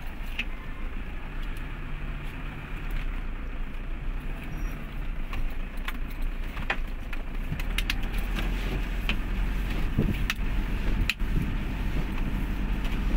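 A car driving slowly over a rough, muddy road, heard from inside the cabin: a steady low rumble of engine and tyres, a little louder after about eight seconds, with scattered sharp clicks and knocks.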